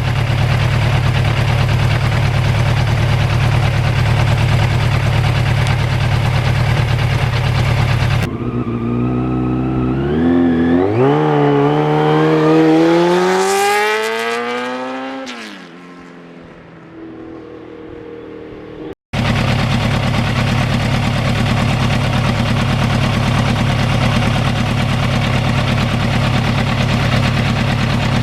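Yamaha FZR1000 motorcycle at riding speed: a steady rush of engine and wind noise. About eight seconds in, after a cut, the engine note climbs in pitch as it revs up, then falls and fades away. Near the middle, another cut brings back the steady riding noise.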